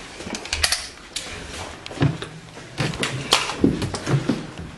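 Irregular clicking and knocking from a handheld camera being moved and handled, with a few low thumps from about two seconds in.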